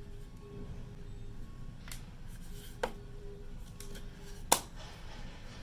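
A few sharp plastic clicks and taps from handling a wireless earbud charging case and its accessories, the loudest about four and a half seconds in.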